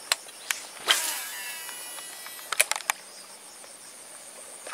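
Steady, high-pitched drone of insects such as crickets, with a few sharp clicks or taps, the loudest about a second in and a quick cluster near the middle.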